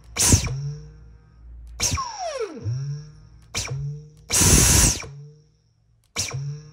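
Dyson vacuum cleaner motor switched on and off in short bursts, about five times. Each burst gives a sharp start and then a falling whine like a toy ray gun as the motor spins down. Near the middle the motor runs a little longer, with a loud rush of air.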